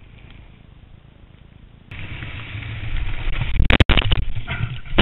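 Honda Dominator dirt bike ridden off-road: quiet running at first, then much louder from about two seconds in. Near the end come several heavy thumps and crashes as the bike goes down and tumbles, followed by crackling and scraping on the ground.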